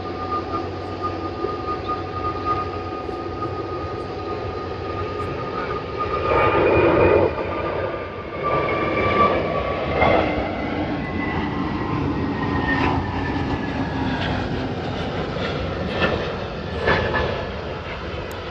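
Airbus A320neo's CFM LEAP-1A turbofan engines running during the takeoff, a steady whine in two tones that slowly fall in pitch over a broad rumble. Several louder rough stretches and knocks come partway through.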